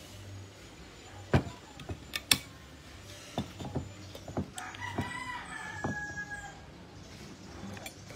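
A rooster crowing about five seconds in: one drawn-out call falling slightly in pitch. Around it come a string of sharp clicks and knocks, the loudest a little over two seconds in.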